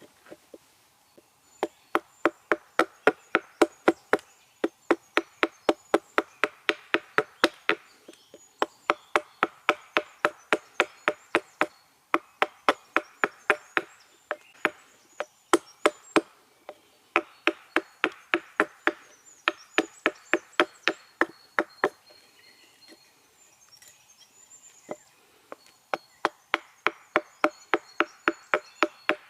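Hatchet chopping a small wild cherry spoon blank: quick, light, even strikes, about four a second, in runs of several seconds with short pauses between.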